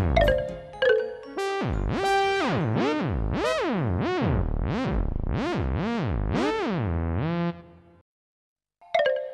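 Cartoon background music: a synthesizer playing a run of swooping notes that glide up and down about twice a second, fading out about 8 seconds in. After a brief silence, a few bell-like notes start near the end.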